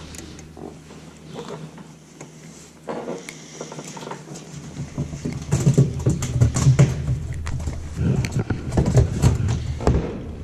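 Low steady hum of a boat motor that stops about half a second in and comes back on after about four seconds. In the second half, loud gusty buffeting with rustling and clicks, like wind and handling on the microphone.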